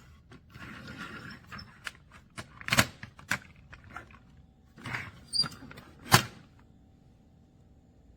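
Toy train cars and shape keys being handled: scraping and rattling with several sharp clicks and knocks, the loudest about six seconds in. After that only a faint steady hum remains.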